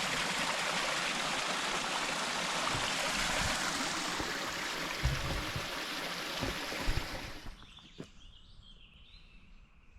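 Small waterfall splashing and rushing steadily. About seven and a half seconds in, the water sound stops abruptly, leaving a much quieter background with faint high calls.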